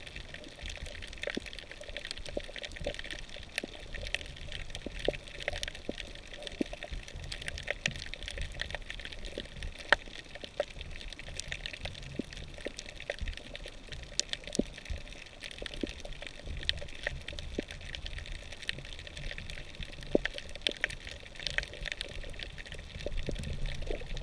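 Underwater sound on a coral reef, picked up by a submerged camera: a steady hiss thick with short, sharp clicks and crackles, over a low rumble of moving water.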